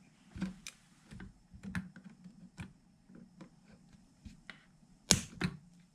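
Hands working on a power supply's wiring and case: scattered light clicks and taps of small parts being handled, with a couple of louder clicks near the end.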